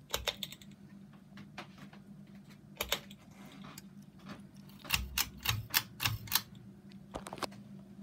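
Kings of Fans Helmsman ceiling fan motor running with a steady low hum, with a string of sharp clicks over it: a few near the start, one about three seconds in, and a quick run of about six loud ones around the five-second mark.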